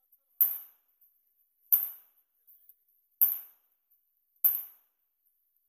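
Four handgun shots fired about one and a half seconds apart, each trailing off in the echo of an indoor range.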